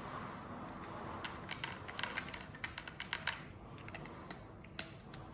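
Irregular run of small sharp clicks and taps from a cat working at a plastic treat-puzzle board, starting about a second in and dying away near the end.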